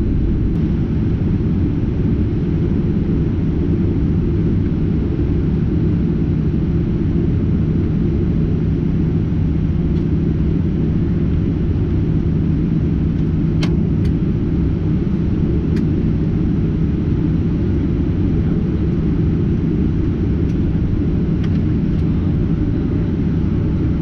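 Boeing 737-800's CFM56-7B jet engines idling, a steady low rumble heard inside the cabin. A steady low hum rides on it through the middle and fades away after that.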